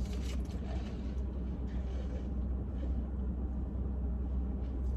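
Steady low rumble of a car's cabin with the engine running, with a few brief soft noises near the start and around two seconds in.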